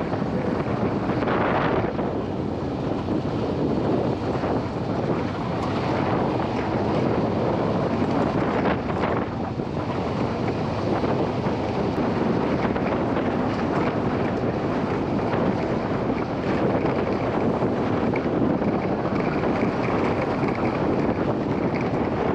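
Open UTV driving off-road: steady engine and tyre rumble under heavy wind buffeting on the microphone.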